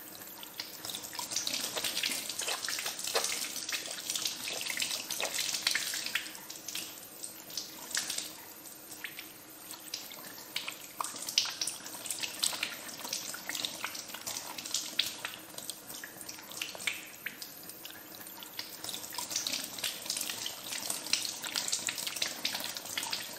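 Tap water running steadily onto hands that are being rubbed together beneath the stream, with many small wet splashes as the fingers and palms work in the water.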